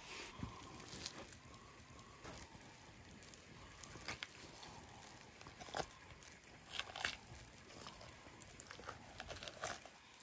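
Hands peeling the skin away from the flesh of a large grass carp: faint separating sounds with scattered short clicks, a few sharper ones about four, six, seven and ten seconds in.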